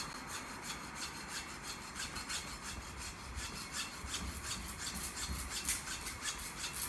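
Hand saw cutting through a rock-hard frozen tuna, rasping in quick, even back-and-forth strokes, about four a second.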